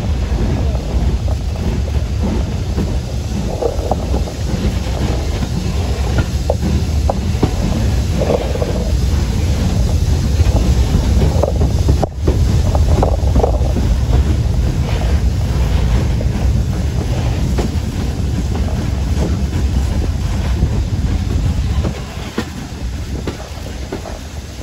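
BR Standard Class 5 4-6-0 steam locomotive Camelot on the move, heard from the footplate: a steady low rumble of the engine and wheels with rail clatter, and wind buffeting the microphone. It gets somewhat quieter near the end.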